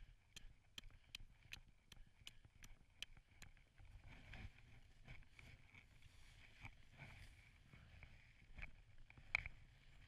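A hatchet chipping at frozen snow, starting as quick light ticks about four a second, then turning into irregular scraping and knocks with one sharper knock near the end. The snow is being cleared to uncover buried bait meat.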